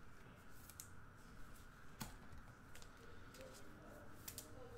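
Near silence with a few faint clicks and rustles of trading cards being handled and shuffled through.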